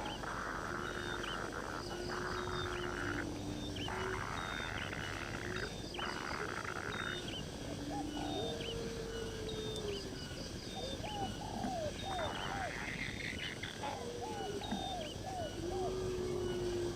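Chorus of wild animals: a buzzing hiss that switches on and off every second or two, over many short repeated chirps and low calls.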